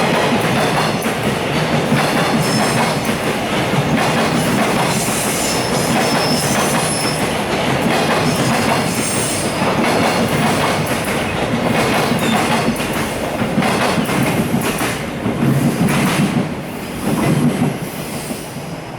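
Train of JR Freight Koki container wagons rolling past, wheels clacking over the rail joints with occasional high wheel squeal. The sound eases near the end as the last wagons go by.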